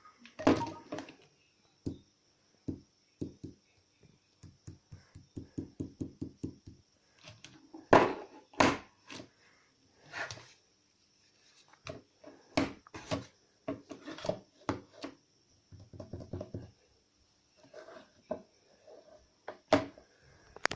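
Irregular knocks and taps on a hard surface, with a quick even run of about five light taps a second around five seconds in and several louder knocks later.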